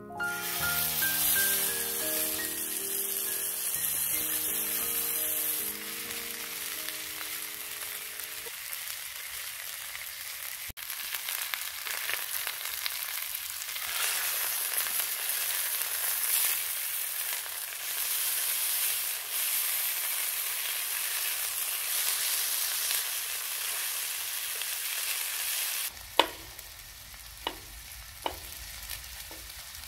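Beef short rib frying in hot oil in a frying pan, a steady high sizzle. About four seconds from the end the sizzle falls quieter and a knife taps sharply on a bamboo cutting board about four times, cutting garlic.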